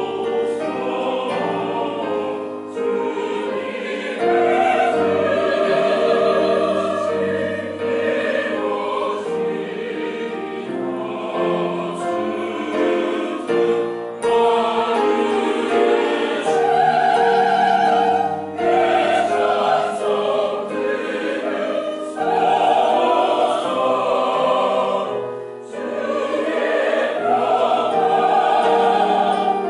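Mixed church choir singing a sacred choral piece in many parts, with a brief drop in level near the end before the voices come back in.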